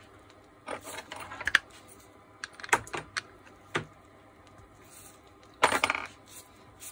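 Small metal parts and hand tools clicking and clinking in four short bursts while an angle grinder is being taken apart, with the loudest clatter near the end.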